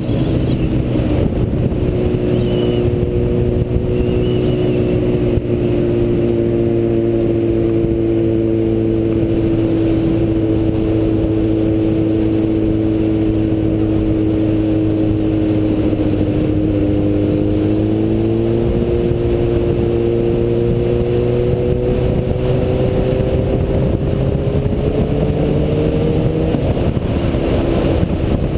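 Yamaha FZ1 motorcycle engine pulling at road speed, heard from the rider's helmet with wind rushing over the microphone. The engine note sags slowly, climbs steadily from a little past halfway, then drops near the end.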